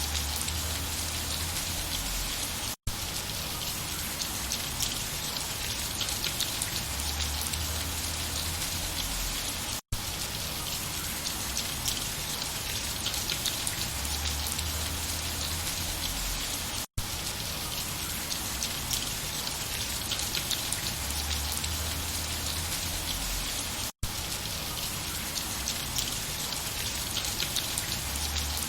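Steady rain falling, an even patter of raindrops on a surface. The sound cuts out very briefly about every seven seconds, four times.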